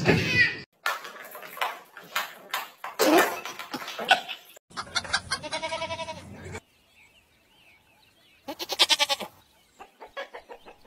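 Goats bleating: one long wavering bleat about five seconds in, and a shorter, quavering bleat about eight and a half seconds in, followed by a run of short calls near the end.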